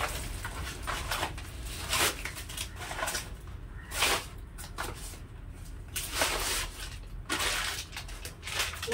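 Plastic grocery bags and packets rustling and crinkling as groceries are handled and taken out of a shopping bag, in separate short bursts every second or two.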